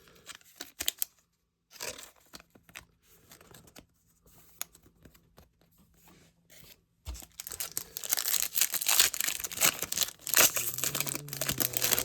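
A trading-card pack wrapper being torn open and crinkled, with scattered light handling clicks first and a dense, loud tearing crackle in the last few seconds.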